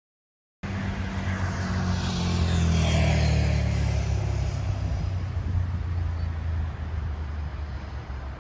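A motor vehicle passing by, its noise falling in pitch as it goes, over a steady low traffic rumble that slowly fades. The sound cuts in abruptly about half a second in.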